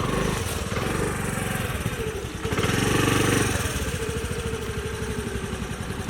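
Motor scooter engine running hard as it comes up a rough, broken trail, revving up about the start and again around three seconds in.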